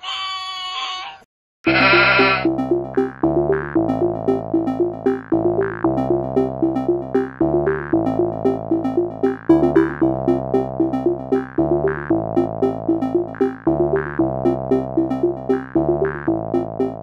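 A dog's drawn-out wavering howl for about a second, then a short quavering bleat, then synthesizer music with a steady, evenly repeating beat for the rest.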